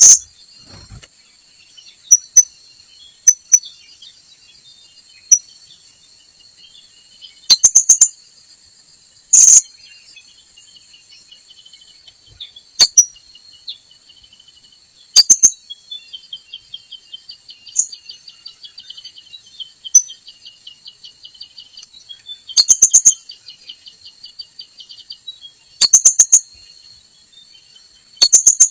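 Blue-crowned hanging parrot (srindit) calls: sharp, very high chirps, some single and some in quick runs of three to five, coming every few seconds. Under them runs a steady high drone of insects.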